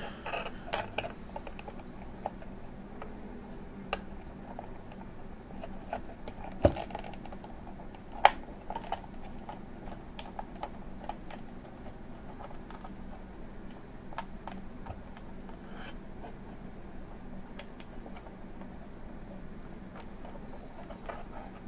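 Small irregular clicks and taps of hands handling cables and fittings inside a clear acrylic case, with two sharper knocks at about seven and eight seconds in.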